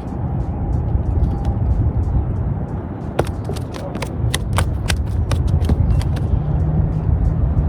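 Steady low rumble with a quick run of sharp clicks and rattles from about three to six seconds in.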